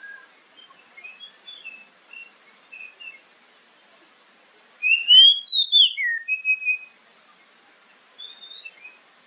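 Oriental magpie-robin singing: a few soft, short whistled notes, then a little past halfway a loud two-second phrase of rising and falling whistles, then a few soft notes again near the end.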